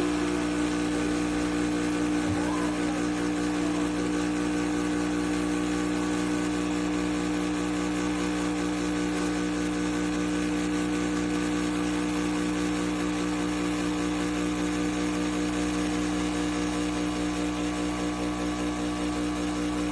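Breville Bambino espresso machine's steam wand frothing milk: a steady hiss over the machine's vibration pump buzzing with a constant tone.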